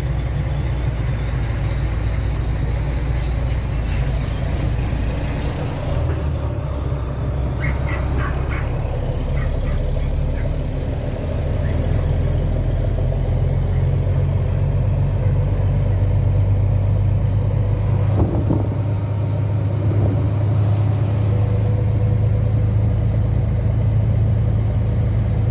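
Volvo NH 380 truck's diesel engine running at road speed, a steady low drone with road noise. A little under halfway through the engine note grows louder and fuller.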